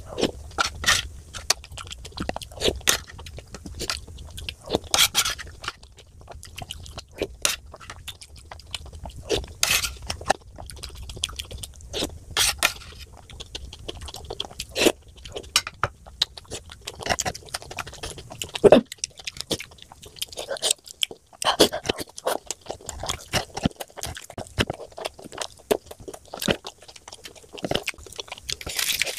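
Close-miked eating of chickpea-and-yogurt chaat: moist chewing with crunchy bits, and a metal spoon clinking and scraping on a steel plate in irregular sharp clicks. Near the end, hands tear a soft bun apart.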